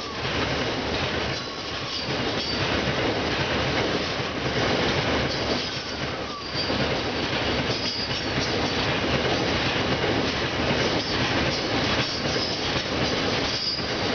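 An SCT freight train's wagons rolling steadily past over the level crossing: a continuous rumble and clatter of steel wheels on rail, with brief high squeals now and then.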